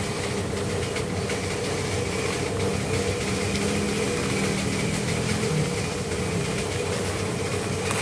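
A machine engine running steadily with a constant drone, under the rustle and rattle of fried peanuts and dried chillies being stirred by hand in a plastic basin.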